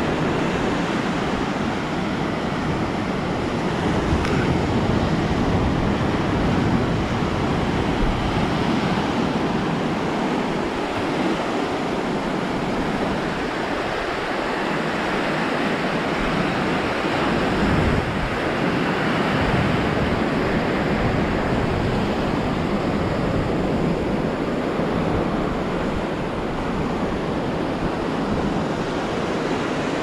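Ocean waves breaking and washing up on the beach, a steady rushing, with wind buffeting the microphone now and then.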